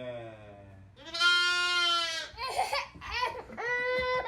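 A goat bleating loudly: one long, steady call, then several shorter ones.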